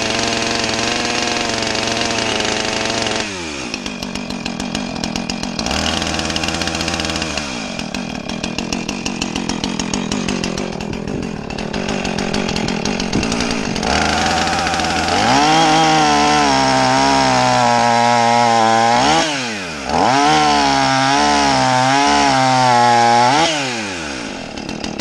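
Two-stroke petrol chainsaw cutting through a log at full throttle. The engine drops in pitch about three seconds in, revs up again several times, wavers as the chain bites, and falls back near the end.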